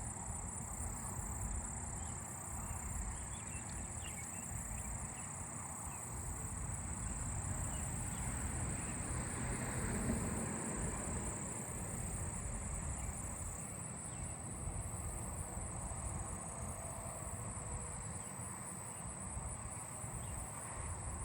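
Insects calling in a tall-grass field, a chorus of crickets and meadow katydids, making a steady high-pitched trill.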